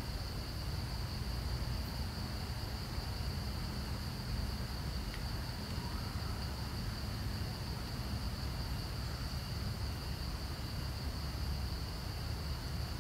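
Steady high-pitched drone of insects, with an even low rumble underneath.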